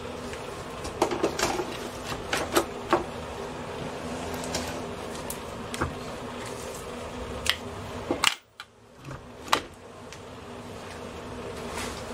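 Cordless drill/driver running steadily, backing out the fasteners that hold the pressure washer's water pump to the engine, with sharp metallic clicks. The motor stops abruptly about eight seconds in.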